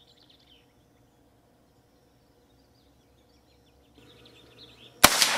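Faint chirping in a quiet field, then about five seconds in a single sharp rifle shot from a .17-calibre Henry lever-action rifle fired offhand, followed by a ringing report.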